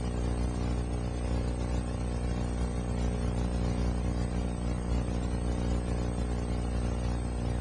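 A steady buzzing hum with a low drone and many even overtones, unchanging in pitch and level.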